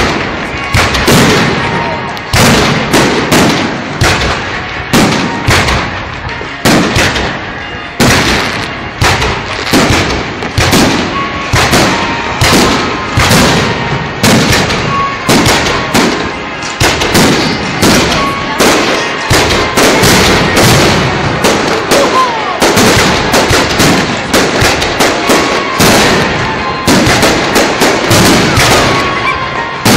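Fireworks display: aerial shells bursting in a continuous barrage, loud bangs following each other at about two to three a second.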